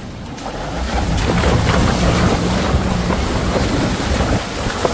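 Vehicle engine drone while driving, under heavy wind noise buffeting the microphone, which grows louder about half a second in.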